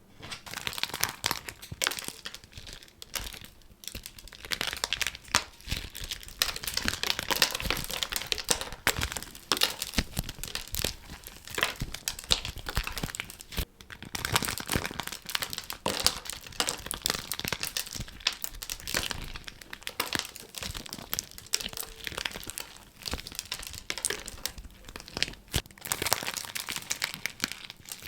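Continuous crinkling and crackling of a layered squishy being squeezed and crushed by hand, many sharp crackles packed close together with brief lulls.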